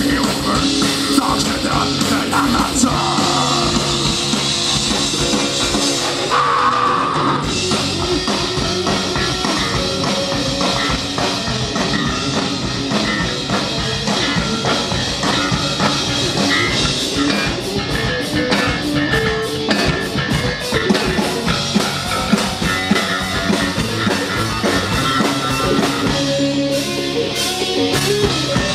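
A metal band playing live: distorted electric guitar, bass guitar and drum kit, loud and steady, with a run of rapid drum strokes a little past the middle.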